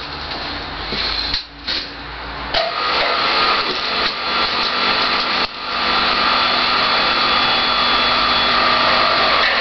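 Motor and drive of a homemade power hammer running steadily with a whine, dropping briefly about one and a half seconds in and again near the middle, then running on steadily and louder.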